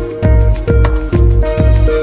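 Background music with a steady beat of about two bass pulses a second under held melody notes.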